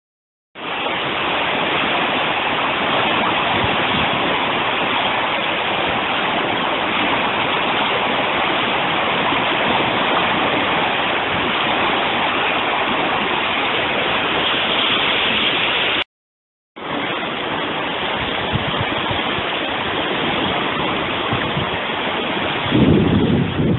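Steady rushing of a river in flood, fast churning floodwater running high between its banks. It breaks off for under a second about two-thirds through, and near the end gusts of wind buffet the microphone.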